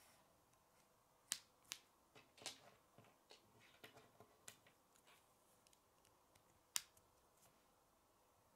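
Plastic K'nex pieces clicking as they are handled and snapped together: a dozen or so irregular sharp clicks, the loudest just over a second in and near seven seconds in.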